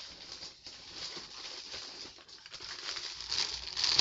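Shopping bags and their contents rustling as they are rummaged through, a crackly rustle that grows louder near the end.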